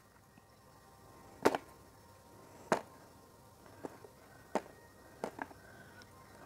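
Cardboard takeaway food boxes and containers handled on a table: a few sharp knocks and taps, the loudest about one and a half seconds in, then smaller ones roughly a second apart.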